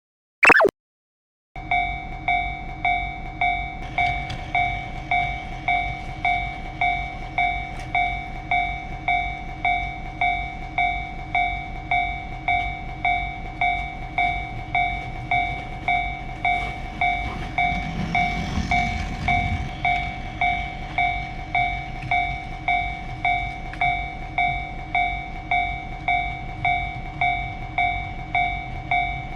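Toy railroad-crossing signal's electronic warning bell ringing over and over, about three dings every two seconds, starting after a short rising chirp. A brief low rumble, like the model train going by, rises and fades about two-thirds of the way through.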